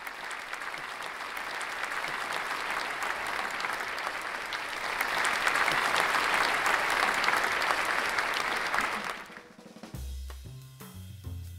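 Audience applause that swells louder about halfway through and stops short about nine seconds in. Background music with a drum kit and bass then starts near the end.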